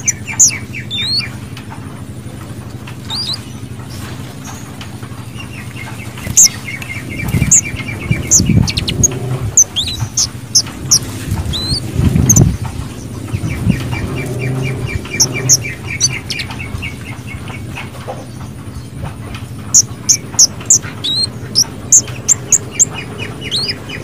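Orange-headed thrush singing: quick runs of short, sharp high notes alternating with stretches of fast rattling trills. There are a few low thumps in the middle.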